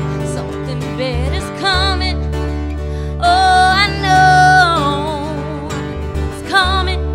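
Music: a song with a voice holding long, wavering notes over guitar and a steady bass line.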